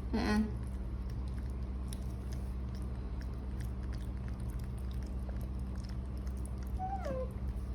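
Baby monkey giving short squeaky cries: one right at the start and a brief squeak about seven seconds in that slides down in pitch. A steady low hum and light tapping run beneath.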